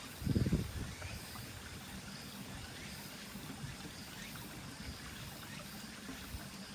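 Small stone-lined stream trickling steadily over stones, with a brief low rumble about half a second in.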